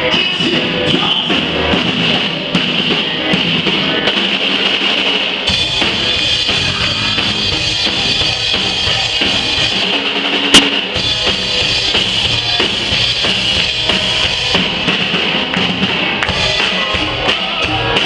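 Live band playing a reggae song with the drum kit up front, snare and bass drum over guitar. The low end comes in fuller about five and a half seconds in, and there is one sharp, loud click near the middle.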